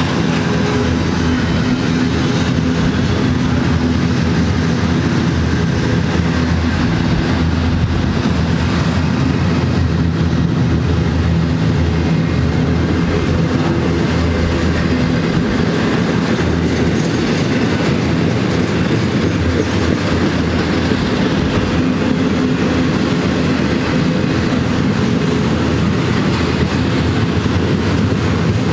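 Double-stack container well cars rolling past at close range: a loud, steady rolling noise of steel wheels on rail that does not let up.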